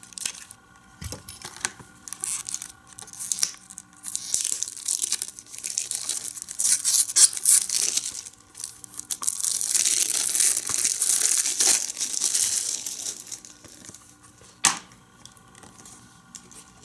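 Plastic shrink wrap being cut with a utility knife and peeled off a Blu-ray case: scattered ticks and scrapes at first, then a long stretch of loud crinkling and tearing plastic. A single sharp click near the end as the plastic case snaps open.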